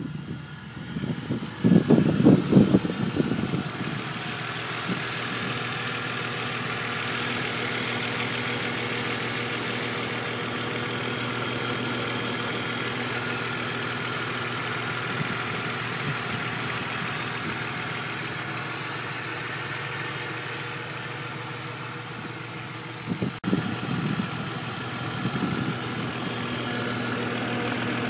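Turbocharged BMW E46 330i inline-six idling steadily with a fast, light ticking from the top end that shows once the oil is warm. The owner has already had the lifters replaced without curing it and suspects a valve problem. A few brief louder surges come about two seconds in and again near the end.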